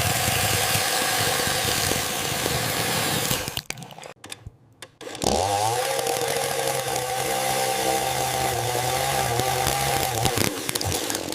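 AI-generated chainsaw sound: a loud, noisy cutting sound for the first few seconds, a brief break, then the saw's motor revs up quickly and runs at a steady pitch before dropping off near the end.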